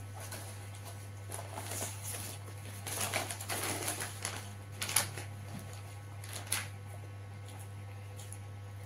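Crinkly paper food wrapper rustling and crackling as food is picked apart on it by hand, in a few irregular bursts with sharp crackles about five and six and a half seconds in. A steady low hum runs underneath.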